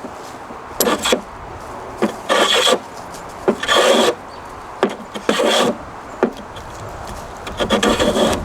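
Restored vintage Diamond Edge hand plane shaving wood: about five short scraping strokes along the board, roughly one every one and a half seconds. The blade is cutting cleanly and lifting thin curls.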